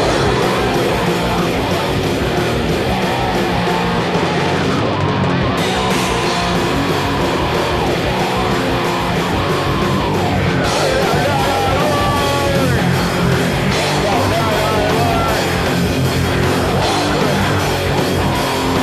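Heavy, distorted rock band recording: two electric guitars, bass guitar and drum kit playing together.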